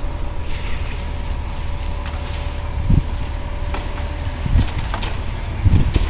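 Wind buffeting the microphone, a steady low rumble, with a faint steady hum that stops about four and a half seconds in and a few short knocks, one about three seconds in and two near the end.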